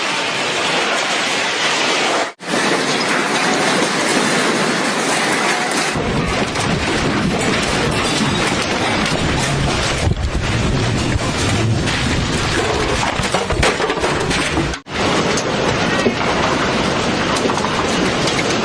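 Storm noise of heavy rain, loud and steady, broken by two brief cuts, about two seconds in and again near fifteen seconds; from about six seconds in a deep low rumble runs under it.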